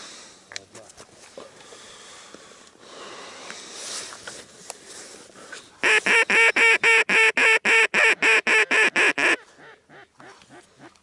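Duck call blown in a fast, even run of about eighteen loud quacks, about five a second, starting about six seconds in, to draw ducks toward the decoys. Before it, only low rustling.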